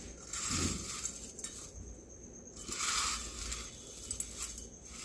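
Crispy fried sev (thin gram-flour noodles) crackling and rustling as a hand crumbles a handful and lets it fall onto a plate, in two bouts of about a second each. The dry, brittle crunch is the sign of well-fried, very crispy sev.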